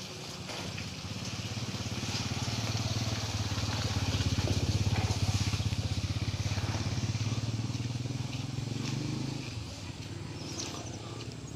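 A small engine passing by: a steady low hum with rapid firing pulses that grows to its loudest about five seconds in, then fades away near the end.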